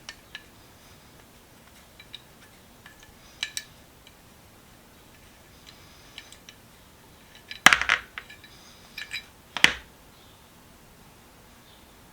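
Light metallic clicks and clinks as a small metal jeweler's hand vise is handled and turned over, with two louder clanks about two seconds apart in the second half as it knocks against a hard surface.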